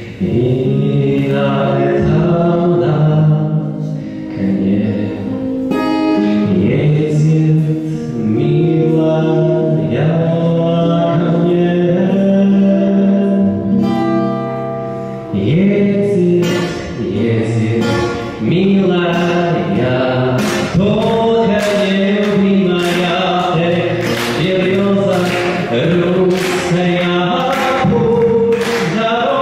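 A male voice singing a Russian song to his own acoustic guitar accompaniment. The strumming gets stronger and more rhythmic about halfway through.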